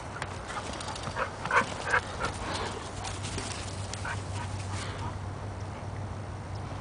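Mixed Portuguese Water Dog giving a string of short, high whimpers and yips, the two loudest about a second and a half and two seconds in.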